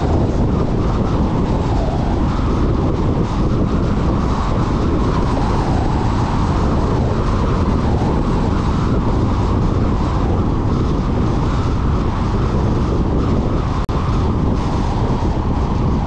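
Steady road noise of a car driving at highway speed: tyre rumble and wind rush, heavy in the low end, with a momentary dip near the end.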